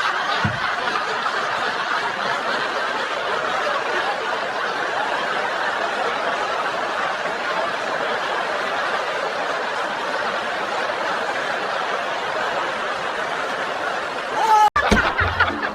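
Crowd laughter: a steady mass of many people laughing together at an even level, which cuts off abruptly near the end.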